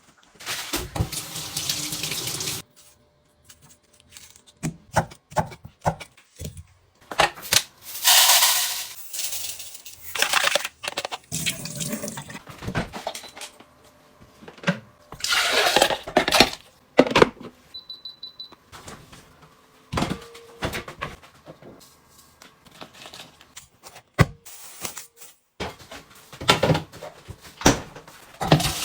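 A tap running at a sink in short bursts, with clinks and knocks of things being handled, and a short electronic beep about eighteen seconds in.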